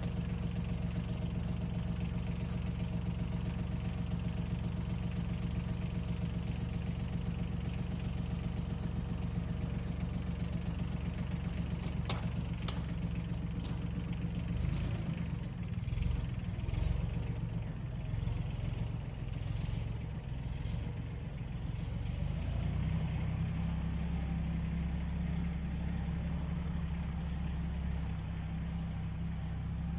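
Tractor engine running steadily, then about halfway its note wavers and changes for several seconds as it pulls on a rope tied to vines and a dead tree, before settling back to an even run.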